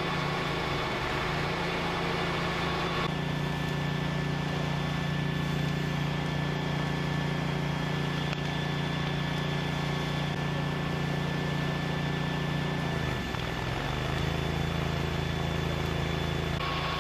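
Fire engine's diesel engine running steadily, pumping water to the hoses. About thirteen seconds in, its note sags briefly and then settles again.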